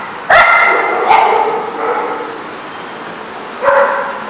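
Small dogs barking while playing together: a loud bark about a quarter second in, another at about one second, and a third near the end.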